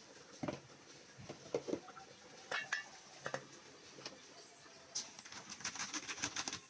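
Cooking utensils knocking and clinking against pots a few separate times, then a fast, steady run of clattering strokes starting about five seconds in.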